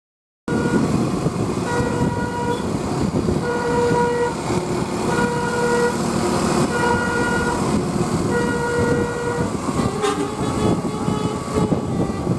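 A bus's basuri telolet horn playing a tune of short notes one after another, changing pitch, over steady road and engine noise. The sound starts abruptly about half a second in.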